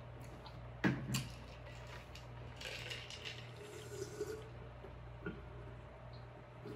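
A person drinking water from a cup: a sharp clink about a second in, then gulping and liquid sloshing as he drinks.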